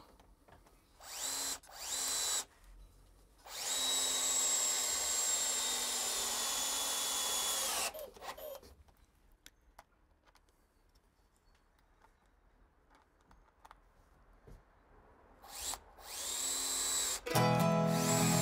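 Cordless drill-driver driving wood screws into a 2x4 block: two short bursts, then one long run of about four seconds whose whine drops as the screw seats, then two more short bursts near the end. Music comes in just before the end.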